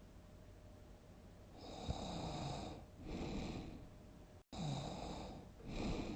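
A sleeping person snoring heavily. After a quiet second and a half come four snores in two pairs, each pair a longer snore followed by a shorter one.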